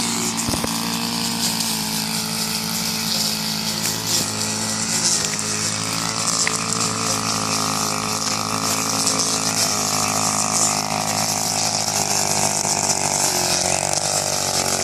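Small engine of a rice-cutting machine running steadily, its pitch shifting slightly near the end.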